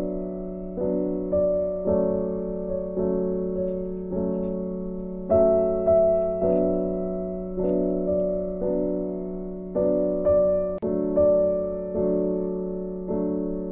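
Background piano music: slow, soft chords, each struck and fading away, with a new chord about every second.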